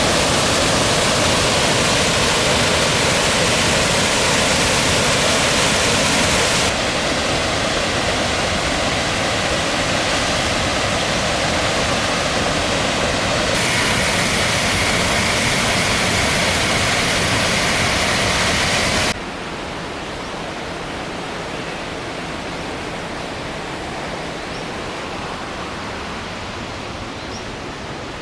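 Waterfall rushing: a steady, dense hiss of falling water. It changes character abruptly about 7 and 13 seconds in, and about 19 seconds in it becomes quieter and softer in the highs.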